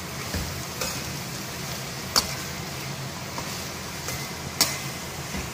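Vegetables frying in a stainless steel kadai while a perforated steel spatula stirs and scrapes them, with a few sharp clinks of the spatula against the pan, the loudest about two seconds in and again about four and a half seconds in. A steady low hum runs underneath.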